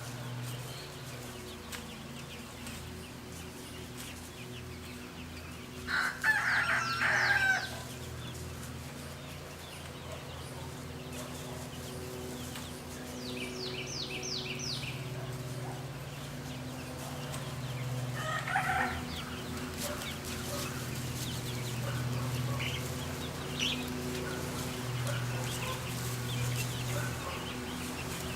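Young chickens clucking and calling over a steady low hum. About six seconds in there is one loud, wavering call lasting over a second. Around the middle come four quick high chirps, and a shorter call follows a few seconds later.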